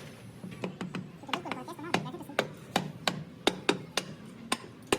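Repeated sharp hammer blows, about three a second and unevenly spaced, in a transmission repair workshop.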